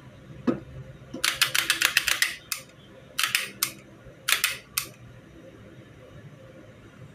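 Metallic clicking from the action of a reassembled Beretta 92FS 9 mm pistol being worked by hand. A soft knock comes first, then three quick runs of sharp clicks.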